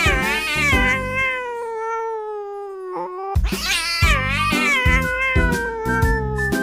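Two long, drawn-out cat meows, one after the other, each sliding down in pitch, over background music with a steady beat.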